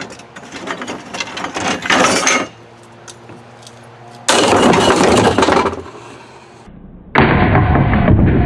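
Ceiling fan blades being cracked and broken off: two stretches of cracking and breaking, the second one louder and shorter. Background music comes in near the end.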